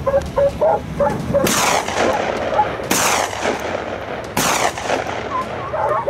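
Three gunshots from a hunter's long gun, about a second and a half apart, each trailing off in an echo. Hunting hounds bay before and after the shots.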